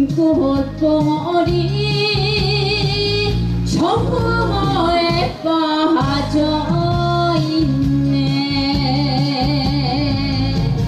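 A woman singing a Korean song live into a microphone over a backing track played through a PA speaker, with held, wavering notes.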